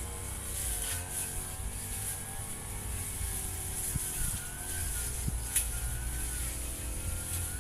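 Firman FGB 528 petrol brush cutter running at cutting speed, its engine note wavering gently as it works through grass, with a few sharp clicks.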